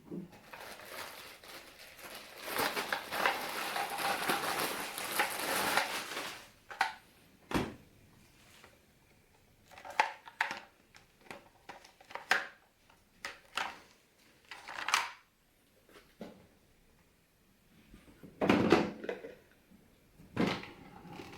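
Crinkling and rustling for several seconds, then a series of scattered clicks and knocks as things are handled.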